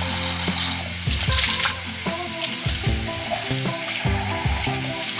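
Water running from a kitchen tap as a glass and then a small plastic container are rinsed under the stream, making a steady hiss and splash. Background music plays underneath.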